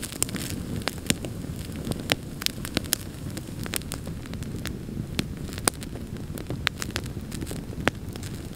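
Split-log wood campfire burning: a steady low rush of flames with frequent sharp crackles and pops at irregular intervals.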